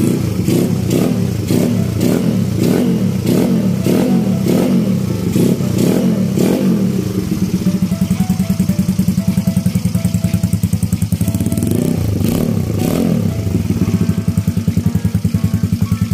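Yamaha Mio scooter's single-cylinder four-stroke engine, sounding through a KOU full titanium open exhaust pipe, blipped quickly about twice a second for the first six seconds or so, then settling into a pulsing idle. Two more revs come near twelve seconds, then it idles again.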